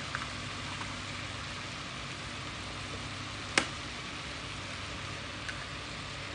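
Egg frying in hot oil in a frying pan: a steady sizzling hiss, with one sharp click a little past halfway.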